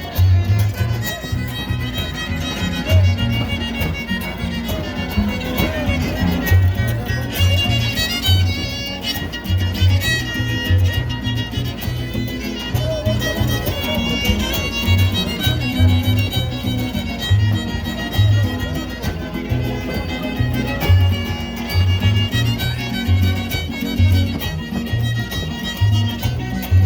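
Son huasteco played live by a trio huasteco: a violin carries the melody over strummed guitars and a steady, even low beat.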